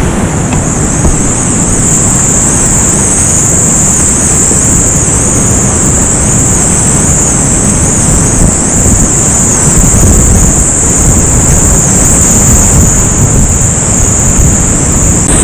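Loud, steady rushing roar of a whitewater creek running high, with water and wind buffeting the microphone and a strong high hiss over it.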